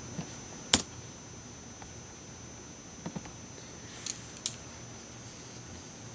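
A sharp click about a second in, then a pair of faint clicks and two light high-pitched ticks a little later.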